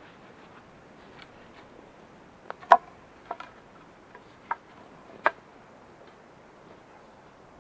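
Sharpened wooden stakes knocking against each other as they are gathered up and handled: a handful of sharp, hollow wooden clacks, the loudest about two and a half seconds in.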